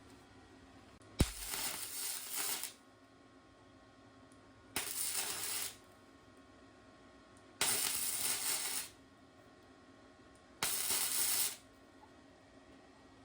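Four short hissing sprays, each about a second long and a few seconds apart, with a sharp click just as the first begins.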